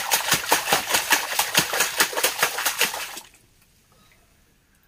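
A child's hands slapping and splashing the water in a wash basin, in a fast run of about six splashes a second that stops about three seconds in.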